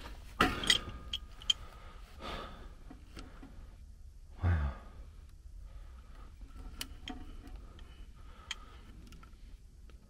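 Sharp metal clicks and clinks of wrenches working the gas pipe fittings at a furnace gas valve, a few in the first second and a half and fainter ticks later on. About halfway through comes a short sigh that drops in pitch, the loudest sound here.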